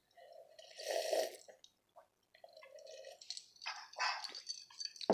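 A person drinking from a mug: a sip and gulp about a second in, followed by a few faint, short mouth and swallowing sounds.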